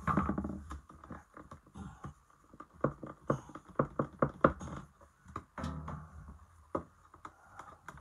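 Light, irregular knocks and taps as a new pine floorboard is pressed and worked down into its gap by hand, densest in the middle few seconds.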